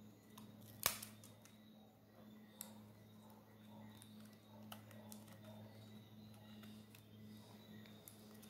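Faint handling of a tablet's small parts as the new LCD screen's flex cable is connected to the board: a sharp click about a second in, then a few fainter ticks, over a low steady hum.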